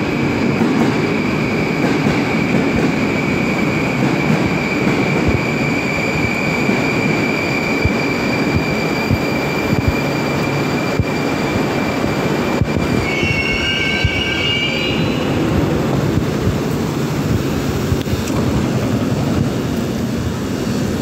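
Metro train pulling into the station: a steady rumble of the cars with a high thin whine that fades away about twelve seconds in as the train stops. Two sharp clicks follow, then a short multi-tone sound a couple of seconds later, over continued rumble.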